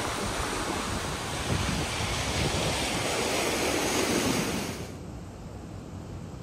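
Steady rush of water from a rocky waterfall and plunge pool, with wind buffeting the microphone. About five seconds in it cuts off abruptly to a much quieter hiss.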